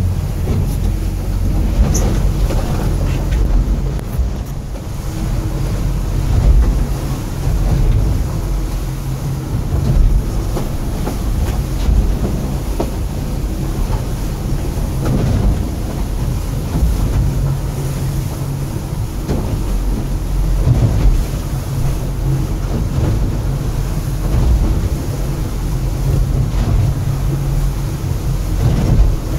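Outboard engine running at steady high speed, heard from inside the cabin of an aluminium catamaran, with the hull thudding and slapping over waves every few seconds in a rough sea.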